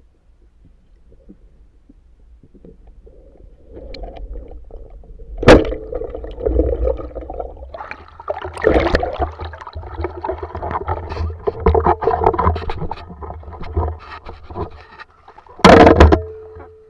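A few seconds of faint underwater rumble, then water splashing and sloshing as a spearfisher surfaces and moves through the river. Two sharp knocks stand out, about five seconds in and near the end.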